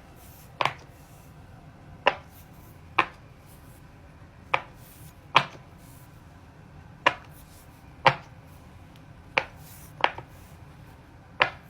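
Bubbles on a silicone Pop It fidget toy being pressed in one at a time: about eleven sharp pops at irregular intervals, mostly a second or so apart, with two in quick succession about ten seconds in.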